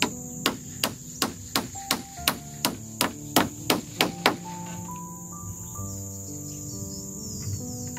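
Hammering: about a dozen evenly spaced hammer blows, roughly three a second, which stop a little past the middle. Crickets shrill steadily throughout, and background music plays underneath.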